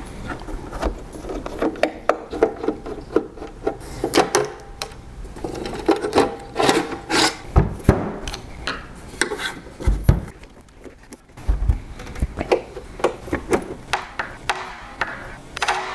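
Handling clatter from the metal chassis of a Ubiquiti Dream Machine Pro as it is taken apart on a wooden table: scattered clicks, scrapes and rubbing of metal parts, with a few dull knocks in the middle.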